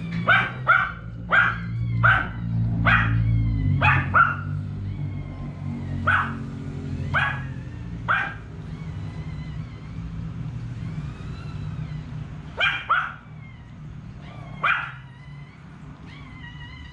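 A small dog barking about a dozen times: a quick run of sharp barks in the first four seconds, then single barks about a second apart, and a few more later. A low steady hum runs underneath.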